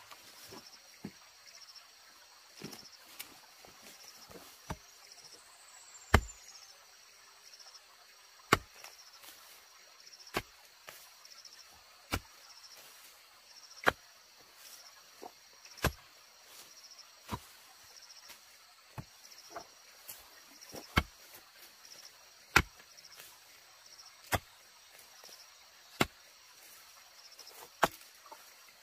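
Repeated chopping strikes of a hand tool, a sharp blow about every one and a half to two seconds with lighter knocks in between, over a steady chirring of insects.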